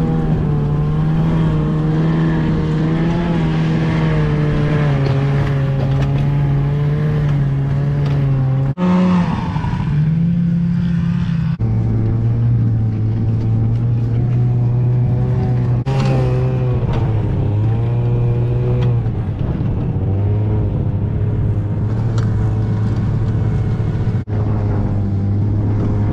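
Snowmobile engine running, its pitch drifting up and down with the throttle. The engine note jumps abruptly three times.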